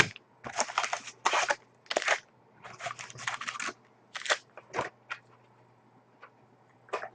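Wrappers on a sealed box of trading cards being torn and crinkled open, in a string of short ripping and crinkling bursts that stop about five seconds in. A faint steady electrical hum lies underneath.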